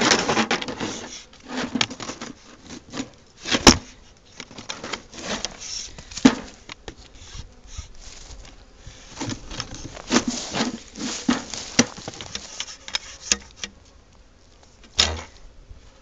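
Irregular knocks, taps and rustling as a wooden beehive box is handled and poked, with old comb debris and dry leaves scraping and crackling.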